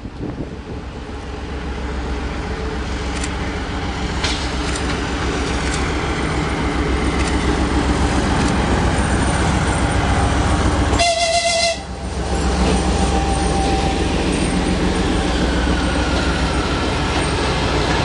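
M62-series diesel locomotive passing close by, its two-stroke V12 diesel engine drone growing louder as it approaches. A short horn blast sounds about eleven seconds in, and the drone carries on as the locomotive and its freight wagons go by.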